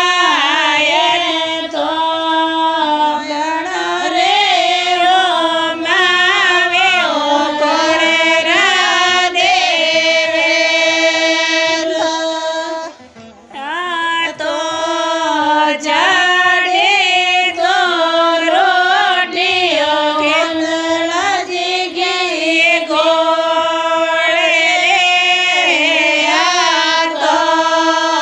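Female voice singing a traditional Rajasthani (Marwari) ratijoga devotional song, a continuous melodic line with a short break about halfway through.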